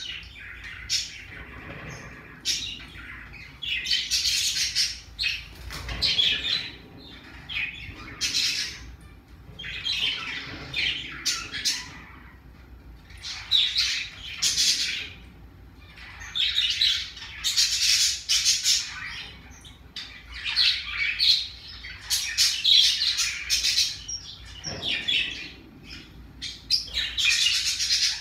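Pacific parrotlet chirping and squawking in short high-pitched bursts that recur every second or two.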